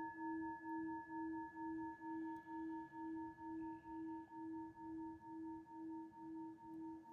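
Singing bowl ringing on one steady low tone with fainter higher overtones. Its loudness wobbles about twice a second and slowly fades.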